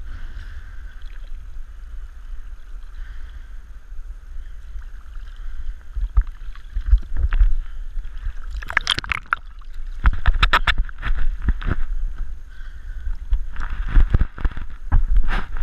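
Small waves lapping and splashing against a head-mounted camera at the sea surface, heard muffled through a neoprene dive hood over a low rumble. Clusters of sharper splashes come a little past halfway and again near the end.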